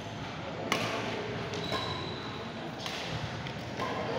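Badminton shuttlecock struck by rackets in a rally: two sharp smacks about two seconds apart, with short squeaks between them, in a reverberant hall.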